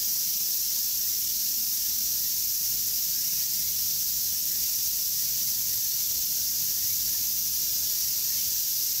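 A steady, high-pitched chorus of cicadas, an even sizzling drone that holds at one level throughout.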